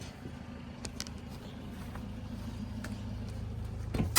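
Vehicle engine idling steadily, with a few faint clicks and knocks.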